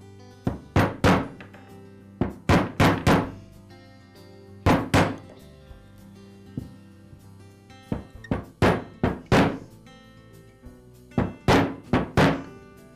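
Mallet tapping a socket that drives a new crankshaft oil seal into an Echo trimmer's aluminium crankcase. The sharp taps come in short clusters of two to four, with pauses between, over soft background music.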